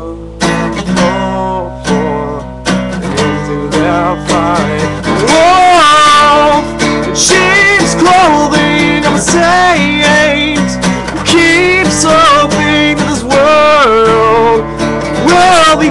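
Acoustic guitar strummed in chords, with a young man singing loudly over it from about four seconds in in long, wavering notes.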